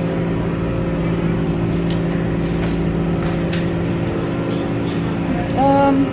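Steady low mechanical hum made of several constant tones, the background drone of a large store's machinery, with a brief voice-like sound just before the end.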